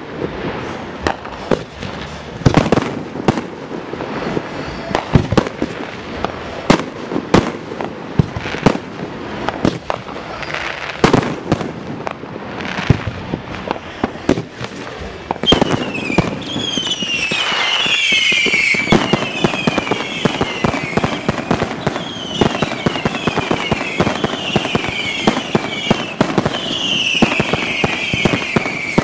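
Aerial fireworks display: shells bursting in a rapid, irregular series of sharp booms and cracks. From about halfway through, many short high whistles that fall in pitch repeat over the bursts.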